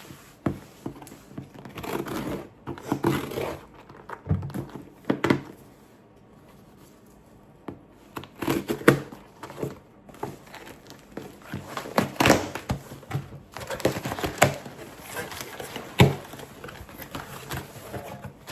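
Packaging crinkling and rustling in irregular bursts as a package is opened and unwrapped by hand, with a few sharp knocks in between.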